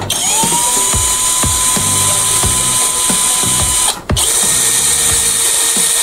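A DCK 20 V cordless drill boring a hole in a plastic bucket. The motor whine rises to a steady pitch as it spins up, cuts out briefly about four seconds in, then starts again.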